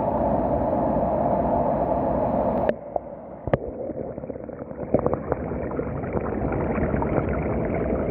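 Running water splashing and gurgling, loud and dense at first, then cutting abruptly to a quieter, thinner flow with a few sharp clicks.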